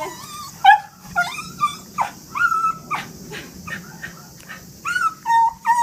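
Dog whining and whimpering in a string of short, high cries that slide up and down in pitch, the excited whining of a dog overjoyed at a reunion.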